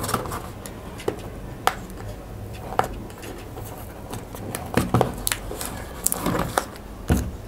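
Cardboard product box being handled and opened: the paper sleeve slid off and the inner box worked open, giving irregular light taps, clicks and scrapes of card.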